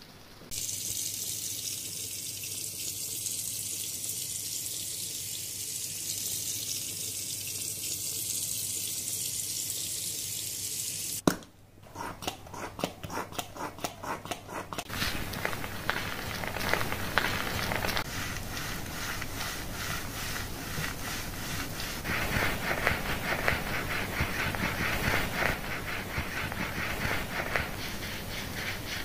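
Running water hisses steadily for about ten seconds and cuts off with a click. Then wet foam shampoo crackles and squishes in rapid strokes as gloved fingers lather it into wet hair and the skin behind the ear.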